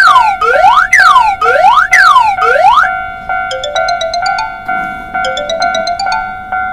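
Electronic cartoon sound effect: a siren-like whoop that sweeps up and down in pitch about twice a second, stopping about three seconds in. Then two quick rising runs of chiming, xylophone-like notes play over a held tone.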